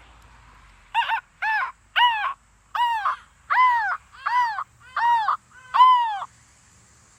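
A person imitating a crow, giving eight loud caws in a row at about one every 0.7 seconds, each note rising and then falling in pitch.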